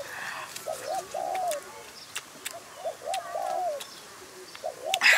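A dove cooing a short phrase of two or three arched notes about every two seconds, over many quick mouth clicks and smacks from someone chewing raw greens. There is a louder crunch near the end.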